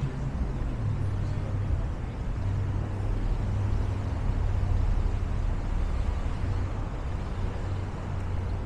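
A motor vehicle's engine running with a steady low rumble, over general city street noise.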